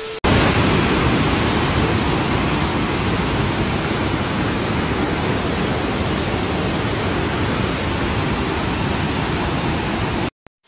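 Muddy floodwater rushing down a street as a torrent, a loud, steady rush of water that cuts off suddenly near the end. A short steady electronic beep from a TV-static transition comes just before it.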